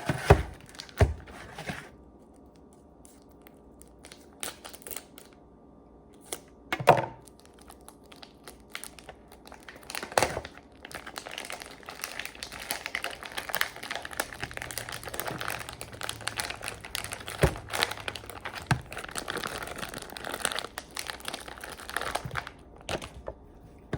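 Plastic packaging of a pack of chicken franks being torn open and handled. A few separate sharp crackles come in the first ten seconds, then steady crinkling runs for most of the second half.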